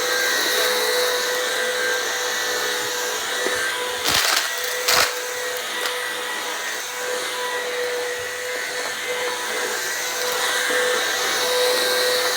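Bissell CleanView upright vacuum cleaner running steadily with an even motor whine, and two sharp knocks about four and five seconds in.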